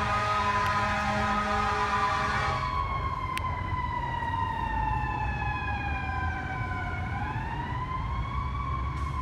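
Fire engine responding with warning devices on: a steady, many-toned horn blast for the first few seconds, then the siren falling slowly in pitch, dipping about seven seconds in and rising again. A low engine and traffic rumble runs underneath.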